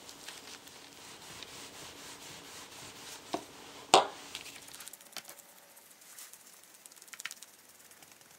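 Soft stretchy craft clay being pulled and kneaded by hand, rustling quietly with faint ticks. Just after three seconds there is a sharp smack, then a louder one about four seconds in, as the clay is pressed onto the paper-covered table. After that come faint scratchy taps of a toothbrush dabbing texture into the clay.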